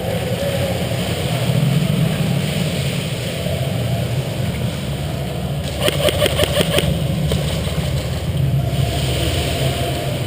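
A steady low rumble, broken a little past the middle by a short burst of about nine rapid shots in under a second from an airsoft electric gun.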